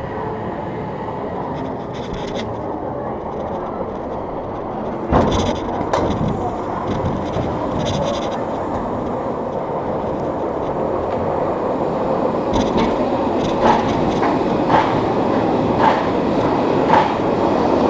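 Swarm B&M wing coaster train rolling slowly along the final brake run into the station, a steady rumble of wheels on track. Sharp clacks come about once a second in the last few seconds as the train moves through the station.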